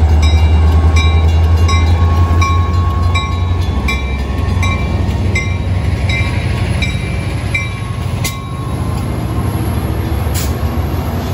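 Metra MP36PH-3S diesel locomotive passing close, its engine rumbling and easing off as it goes by, with the grade-crossing bell dinging about twice a second until it stops about two-thirds of the way in. Two sharp clicks near the end.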